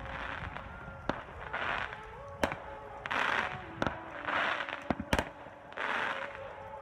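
Intro music: held synth notes that step in pitch, cut by a sharp crack about every 1.3 s, with hissy swells between the cracks.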